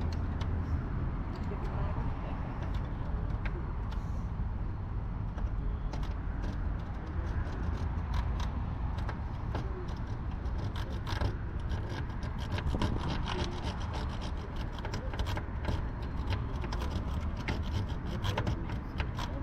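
A rake pick scraping and clicking in the wafer trunk lock of a 1967 Chevy Chevelle, the pick being worked in and out against the wafers, with the ticks coming thicker in the second half. A steady low rumble lies underneath. The lock does not open.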